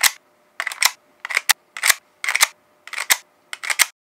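A rapid series of sharp mechanical double clicks, roughly two a second, that stops abruptly near the end.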